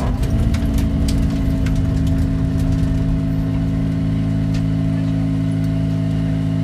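Fiat Cinquecento's 1.2-litre 16-valve four-cylinder engine settling within the first second to a steady idle as the car rolls almost to a stop, heard from inside the cabin.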